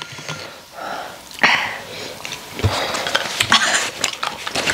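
Short, breathy sniffs and coughs from people whose noses and throats are burning after eating an extremely hot chili chip.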